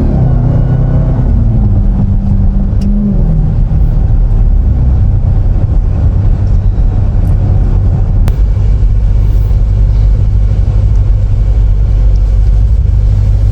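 Car engine running hard at speed down a runway. Its pitch holds, then steps down about three seconds in, and it settles into a loud, steady low rumble.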